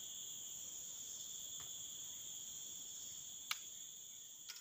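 Steady high-pitched drone of an insect chorus, with a single sharp click about three and a half seconds in; the sound fades gradually near the end.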